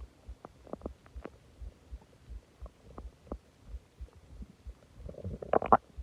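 Human stomach gurgling and rumbling after a large meal and a soda: scattered short squelchy pops over a soft, quick low throbbing. A louder gurgling burst comes about five seconds in.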